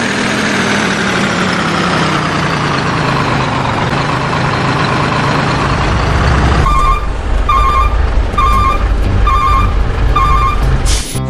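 Remote-control toy truck's sound unit playing an engine sound that falls slowly in pitch, then switching to a reversing alarm that beeps five times, a little under a second apart.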